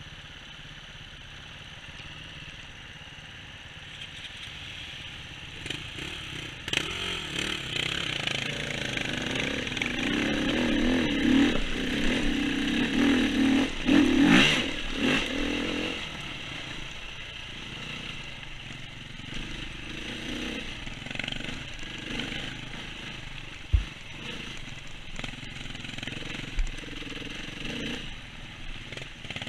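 Dirt-bike engine revving and pulling along a woodland trail, its pitch rising and falling with the throttle, loudest in the middle. Two sharp thumps come near the end.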